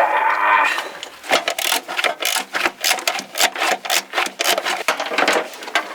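A wrench worked back and forth on the bolt holding a battery down, with quick repeated rasping strokes of a ratchet mechanism. It opens with a loud scrape in the first second.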